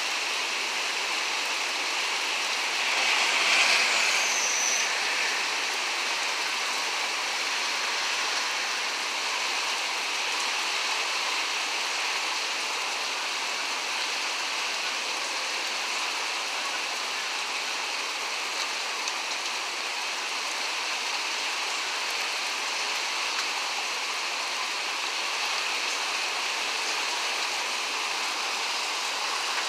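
Heavy wind-driven rain pouring with a steady hiss, swelling louder for a moment about three seconds in.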